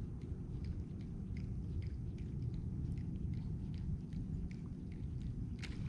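Outdoor ambience: a steady low rumble with many faint, irregular ticks scattered throughout, several a second.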